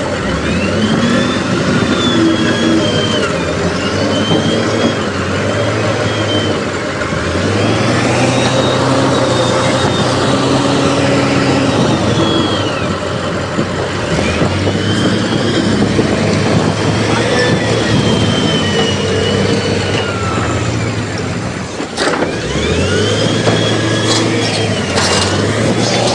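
Heavy diesel earthmoving machine working, its engine revving up and easing off about four times with a high whine rising and falling alongside. There is a single clank near the end.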